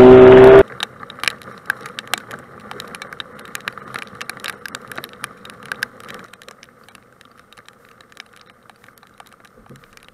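A bass boat's outboard motor revving up, rising in pitch, cut off abruptly about half a second in. Then raindrops tapping irregularly on the camera and kayak in a downpour, thinning out after about six seconds.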